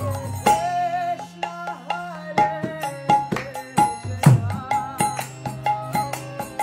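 Kirtan: a woman singing a devotional chant over a harmonium's sustained chords, with hand-drum strokes; the deepest stroke comes about four seconds in.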